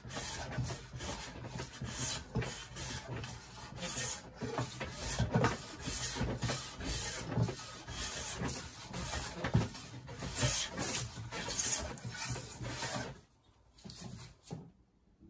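Metal bench hand plane smoothing the edge of a softwood board. It is a steady run of short, rasping cutting strokes, each peeling off a shaving. The strokes stop about two seconds before the end.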